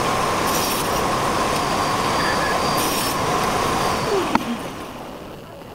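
Angle-grinder motor of a homemade saw table running at speed with a steady high whine. About four seconds in it is switched off with a click and winds down, its pitch falling.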